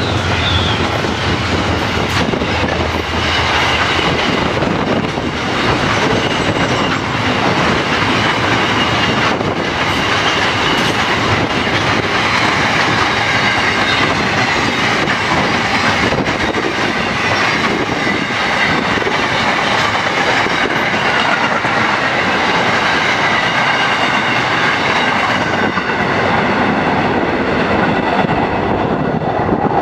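Freight train wagons, loaded container wagons then empty flat wagons, rolling slowly past: a steady rumble and clatter of steel wheels on the rails, with a faint, wavering high wheel squeal over it.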